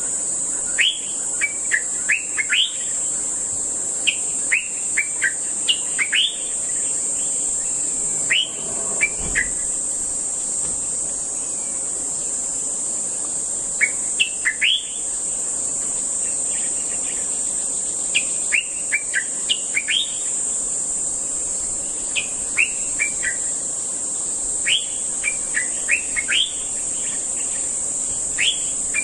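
Common bulbul calling in irregular clusters of short, sharp, quick notes, over a steady high buzz of insects.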